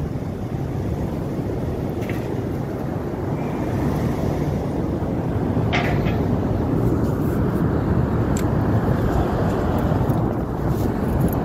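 2012 Dodge Challenger R/T's 5.7-litre Hemi V8 running quietly through its stock exhaust as the car creeps at low speed, a steady low engine sound that grows slightly louder partway through.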